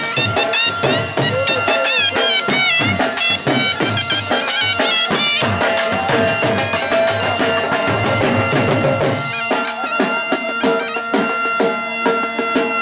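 Folk band of bagpipes, horns with flared brass bells and a dhol drum: the bagpipe drones hold steady under a wavering melody while the dhol beats. About nine seconds in the drum drops out, leaving the held bagpipe drones and melody tones.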